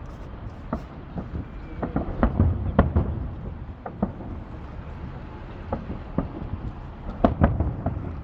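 Fireworks salute: a string of irregular bangs and pops, thickest about two to three seconds in and again near the end, over a steady low rumble.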